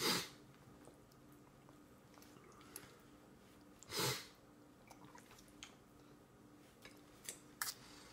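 A toddler eating finger food: quiet chewing and mouth sounds, with two short, loud breathy puffs about four seconds apart and a few light clicks near the end.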